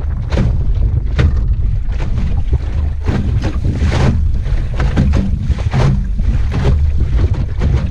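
Heavy wind noise on the microphone aboard a small Optimist sailing dinghy under way, with water splashing against the hull about once a second.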